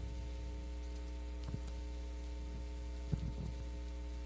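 Steady electrical mains hum, with a few faint soft knocks and rustles about a second and a half and three seconds in as a Bible is handled at the table.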